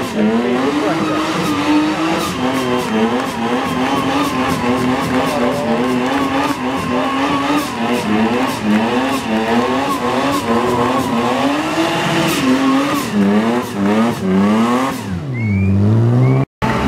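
BMW E36 Compact drift car spinning donuts: the engine is revved hard, its pitch wavering quickly up and down with the throttle, while the rear tyres squeal and spin in smoke. Near the end the revs drop away low and climb again before a brief cut.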